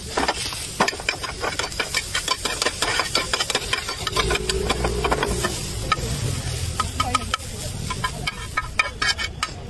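A large metal spoon scraping and clinking against a steel pan in quick, repeated strokes while scooping up a chopped onion and chilli mixture.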